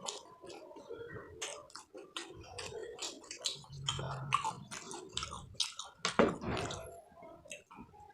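Close-miked chewing and mouth smacking, a person eating with many short wet clicks; a louder bite or slurp just after six seconds.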